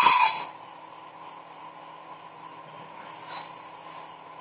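A sharp clatter at the very start, then a steady faint hiss and low hum from vegetables cooking in a covered pan on a gas stove, with one small knock about three seconds in.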